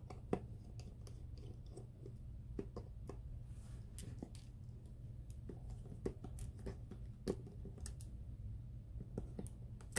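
Faint, irregular small clicks and taps of a precision screwdriver and tiny screws as the screws inside an iPhone X are taken out and set down, over a steady low hum.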